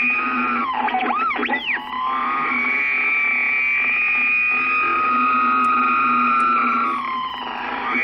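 CB radio receiving a transmission on channel 19, 27.185 MHz: a loud, distorted, static-laden signal. About a second in, whistling tones slide up and down, followed by a steady high whistle that holds for several seconds.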